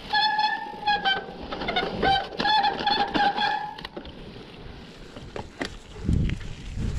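Mountain-bike disc brakes squealing in a steady high tone for nearly four seconds, breaking off briefly twice, over the knocks and rattles of the bike on rough trail. Wind rumbles on the microphone near the end.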